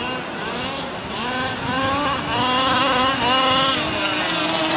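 Small two-stroke engine of a 1/5-scale gas RC buggy revving up and dropping back in repeated throttle blips.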